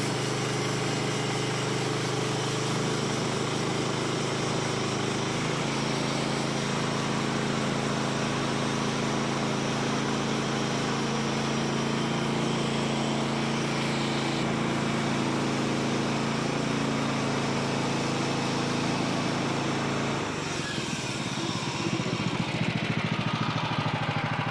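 Portable bandsaw sawmill's gas engine running steadily under load while the band blade cuts through a red oak log. About 20 seconds in the engine note drops and turns rougher and pulsing.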